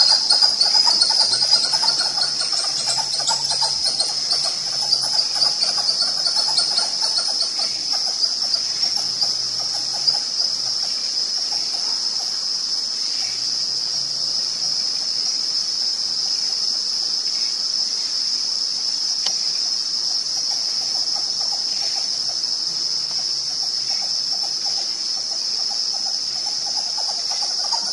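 Insect chorus: a steady, high-pitched shrill drone. A lower, rapidly pulsing chorus runs under it for the first eight seconds or so and then fades out.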